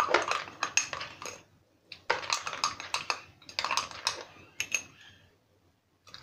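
Metal spoon clinking and scraping against the inside of a tumbler while stirring sattu flour into water to dissolve the lumps, in three quick spells of rapid taps with short pauses between them.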